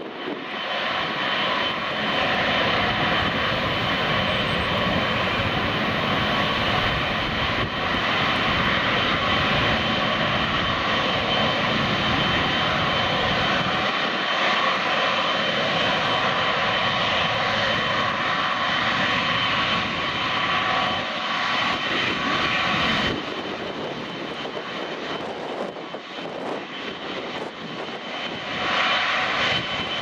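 Boeing 777-300ER's GE90 turbofans at taxi power: a steady jet whine with several high tones over a low rumble, quieter and duller for the last several seconds. Gusty wind buffets the microphone.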